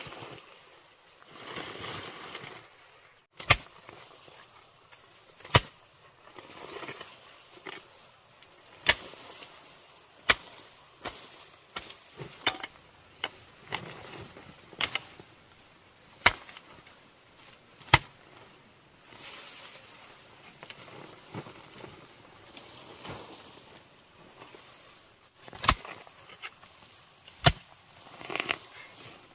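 Sharp knocks, one every second or two at an uneven pace, with quieter rustling and handling noise between them.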